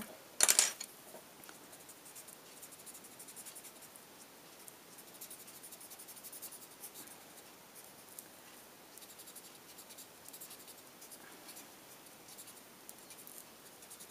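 Prismacolor coloured pencil scratching softly across paper in many quick strokes. A short sharp knock sounds about half a second in.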